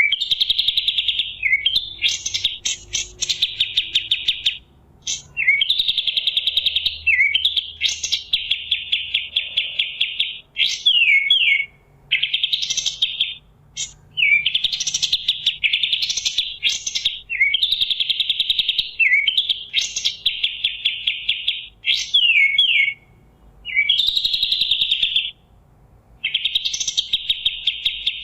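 Pied triller (kapas tembak) singing: rapid high trilled phrases, each a second or two long, repeated over and over with short pauses and quick sweeping notes between them.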